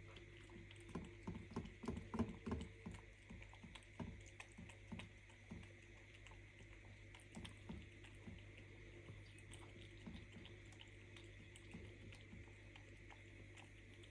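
A cat eating, with soft irregular chewing and mouth clicks, busiest a second or two in and thinning out after about six seconds, over a steady low hum.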